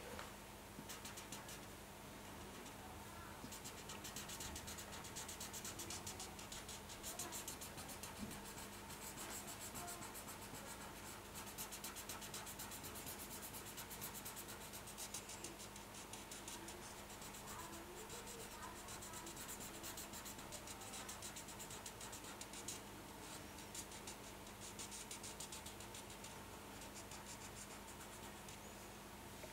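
Felt-tip marker scratching on paper in rapid short strokes as a drawing is coloured in, faint and continuous with brief pauses.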